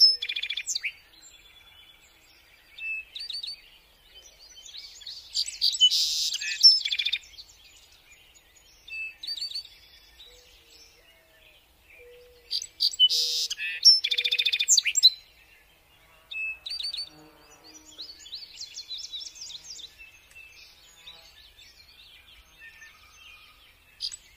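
Several forest birds calling and singing, quick repeated chirps and trills that come in loud bouts about five to seven and thirteen to fifteen seconds in, with quieter calls between and a few short low hooting notes around the middle.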